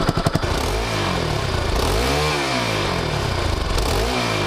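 Bajaj Pulsar NS200's single-cylinder engine blipped three times from idle, its pitch rising and falling with each blip. The hole in the exhaust has been plugged with a screw, so this is its stock exhaust sound, described as very normal.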